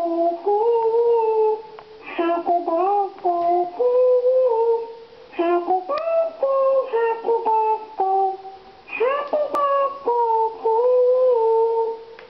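A high voice singing a slow tune in long held notes that slide from one pitch to the next, phrase by phrase with short breaks between.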